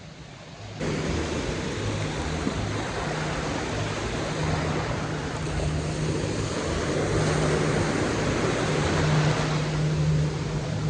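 Ocean surf washing and breaking around the shallows, with wind buffeting the phone microphone; it gets suddenly louder about a second in.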